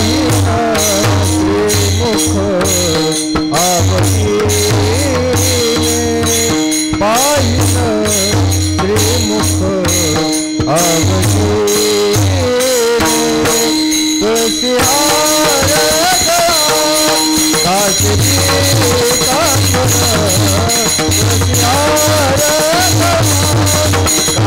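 Warkari devotional bhajan: a man singing a chal tune with long, gliding, ornamented notes, over a steady drone and a continuous rhythm of percussion with bright clinking strokes.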